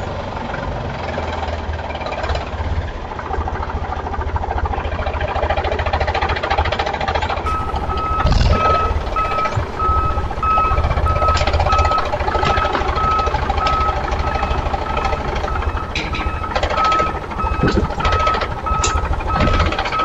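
A vehicle engine running with a fast knocking beat. About seven and a half seconds in, a reversing beeper joins it, sounding a high beep at an even pace.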